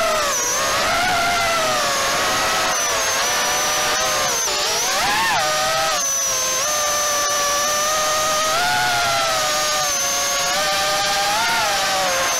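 Diatone Rabbit GT R349 HD FPV quadcopter's brushless motors and propellers whining in flight, picked up close by its own onboard camera. The pitch rises and falls continuously with the throttle, with a deep dip and quick climb about four to five seconds in.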